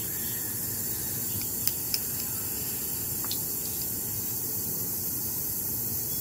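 Steady background hiss of room and recording noise, with a few faint light clicks.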